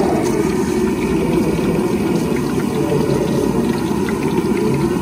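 Pressure-stove burner running steadily with a low roar under a karai of hot oil, with the oil sizzling and crackling around frying shrimp-and-lentil fritters.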